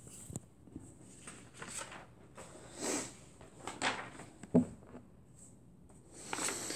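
Faint handling noise: a few small clicks and knocks with soft rustling between them.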